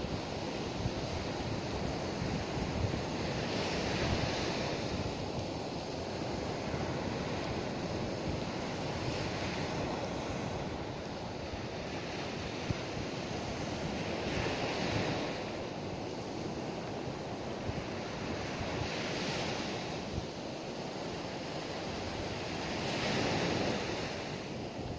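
Baltic Sea surf breaking and washing up a sandy beach, swelling about every four to five seconds, with wind buffeting the microphone.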